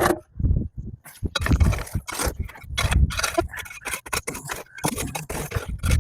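Ashes and leftover coals being stirred and raked in the firebox of a Johnson outdoor wood boiler: a run of irregular scraping and knocking strokes, several a second.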